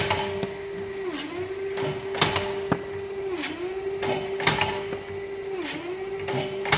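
Motor-driven press for gaharu (agarwood) briquettes and boluses running, its steady hum dipping briefly in pitch about every two seconds as each pressing stroke loads it, with sharp metallic clicks and clacks in between.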